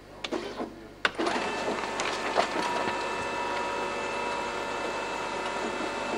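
An office machine's document feeder: a few light clicks, then a sharp clunk about a second in as the mechanism starts. It then runs steadily with a constant hum of several tones as it draws in a sheet of newspaper clippings.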